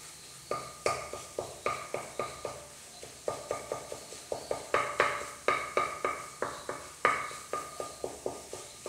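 Wooden spatula scraping and tapping on a non-stick frying pan in quick repeated strokes, about three to four a second, each leaving a brief ring from the pan, as scrambled egg is chopped into pieces.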